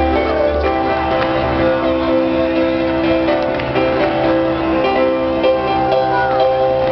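Music with long held notes and chords that change every second or two.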